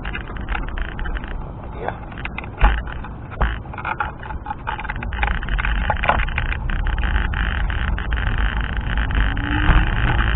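Wind buffeting the microphone of a rider moving along on a scooter: a steady low rumble, broken by scattered sharp clicks and knocks, the loudest about two and a half seconds in.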